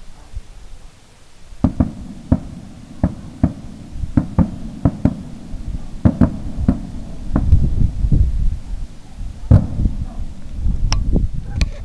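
Distant aerial fireworks exploding: a rapid, uneven series of sharp bangs, a dozen or more, each followed by a low rumble, starting about a second and a half in.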